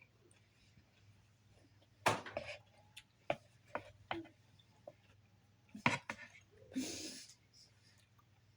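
Eating sounds from a salad: a few sharp clicks and knocks of a big salad spoon against the bowl, with crunchy chewing, the loudest about two seconds in and again near six seconds.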